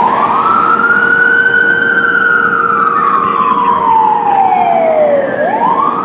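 Rescue ambulance siren wailing. The pitch rises quickly, falls slowly over about five seconds, then rises quickly again near the end.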